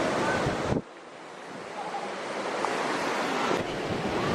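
Steady rushing roar of a waterfall, with some wind on the microphone. It cuts away sharply just under a second in and swells back up over the following couple of seconds.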